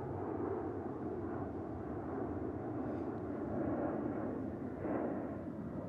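Steady, even rumble of jet airliner engines at an airport, with no distinct events.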